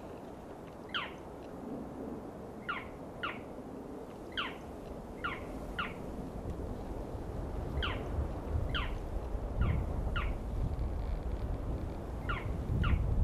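An animal calling repeatedly from the trees: short high whistled calls, each sliding down in pitch, mostly in pairs about half a second apart, a dozen or so in all. A low rumble grows in the background toward the end.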